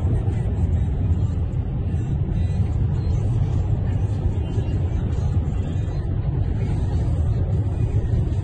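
Steady low rumble of vehicles heard from inside a moving car: the car's road and engine noise through the cabin, mixed with a column of tracked armoured vehicles driving alongside.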